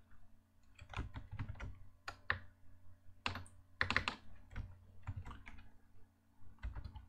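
Typing on a computer keyboard, with irregular, fairly quiet clicking keystrokes at an uneven pace.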